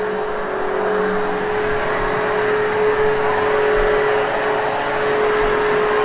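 Vacuum cleaner running steadily over carpet: an even rushing of air and a steady motor whine, with no change in pitch or level.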